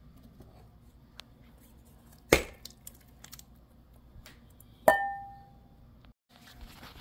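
A dog eating raw lamb shank from its dish, with faint clicks of eating. Two sharp knocks of the food against the dish land about two and a half seconds apart, and the second one rings briefly.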